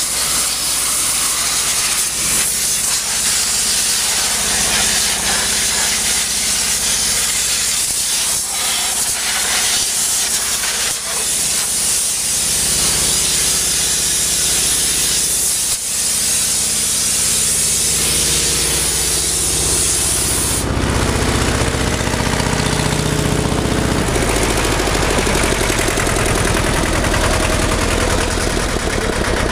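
Compressed-air blow gun hissing as it blasts dust and chaff out of a round baler's knife housing and pickup, cutting off about 21 seconds in. An engine-driven air compressor's small air-cooled engine runs steadily underneath and grows louder toward the end.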